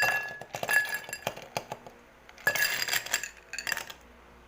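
Ice cubes dropped into a drinking glass, clinking and rattling against the glass in two clusters, the second about two and a half seconds in, with the glass ringing.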